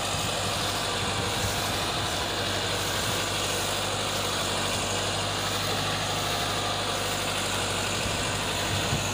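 Tractor diesel engine running steadily with a low hum as it pulls a heavily loaded sugarcane trolley.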